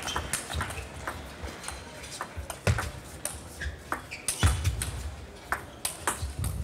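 Table tennis rally: the celluloid ball clicks sharply and quickly off the rubber-faced bats and the table at uneven intervals, back and forth. A few low thuds come in among the clicks.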